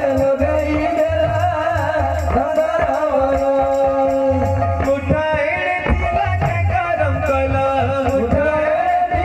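Devotional kirtan music: sung melody over a double-headed barrel drum and large brass hand cymbals clashing in a steady beat.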